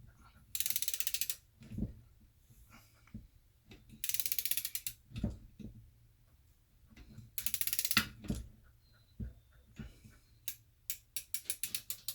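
Ratchet of a torque wrench clicking in three bursts of rapid, even clicks as the sump cover bolts of a Briggs & Stratton engine are run down, with a few low knocks between and a quicker string of separate clicks near the end.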